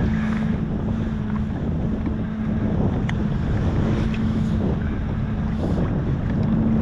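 Wind buffeting the microphone, with a steady low hum held underneath and a few faint ticks.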